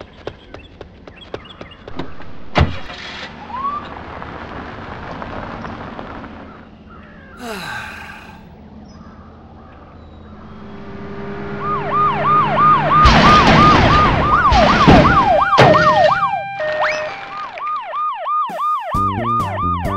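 Sound-effect police sirens in fast repeated sweeps, several overlapping, with a loud crash of cars colliding in the middle. Earlier there are scattered clicks and a sharp knock, and music begins near the end.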